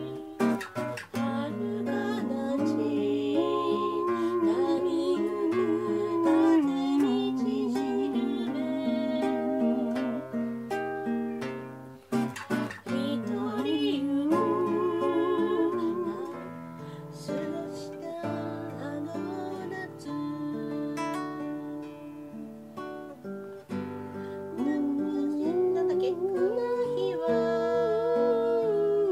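A voice singing a Japanese song with vibrato over a strummed acoustic guitar, with a short break about twelve seconds in.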